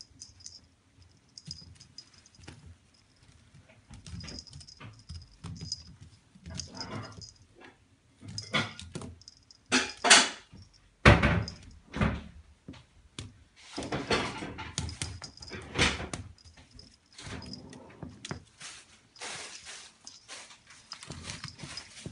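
A kitten at play: scuffling paws and the wicker basket knocking and scraping on a wooden floor, with a few loud knocks about halfway through. A small collar bell jingles lightly on and off.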